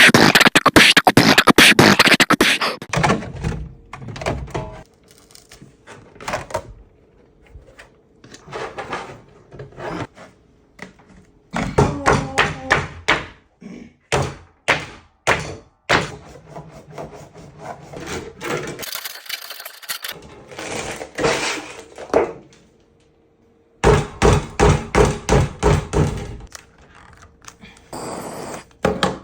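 Repeated knocks and thunks in quick runs of several strokes with short pauses between, densest and loudest at the start.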